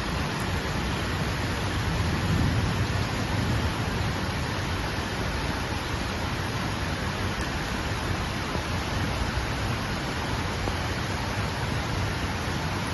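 Steady rain falling, an even hiss with no breaks. A low rumble swells briefly about two seconds in.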